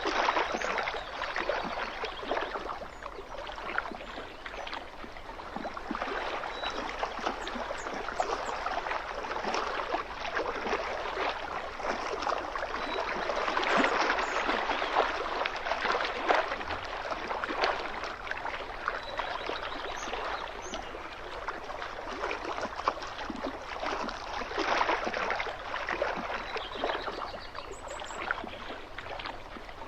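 Small waves lapping and splashing against a lake shoreline, a continuous irregular wash of water that swells and eases in loudness, strongest about halfway through.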